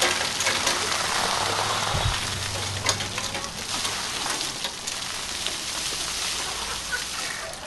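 Ice water pouring and splashing down over people in a sustained heavy rush of about seven seconds, with scattered sharp clicks and a brief low thud about two seconds in.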